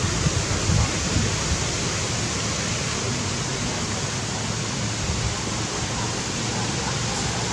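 Steady, even hiss of noise with no distinct sounds standing out in it.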